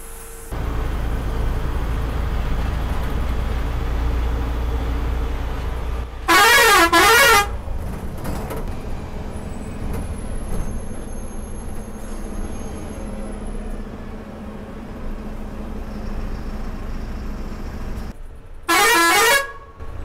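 Bus horn blown twice over the coach's running engine and road noise, heard from inside the cabin: a loud blast with a warbling pitch about six seconds in, and a shorter one near the end. The low rumble is heavier for the first six seconds, then eases as the bus slows.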